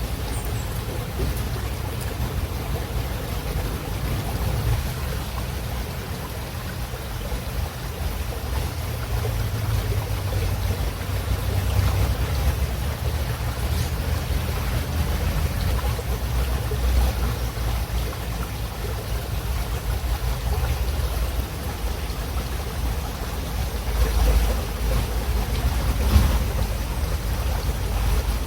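Calm river water running steadily: a continuous rushing noise with a deep low rumble, swelling and easing slightly in loudness.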